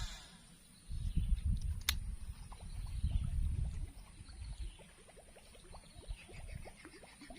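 Swamp ambience: a low rumble on the microphone with a single sharp click during the first half, then frogs calling in short rising chirps, joined near the end by a fast, high pulsing call.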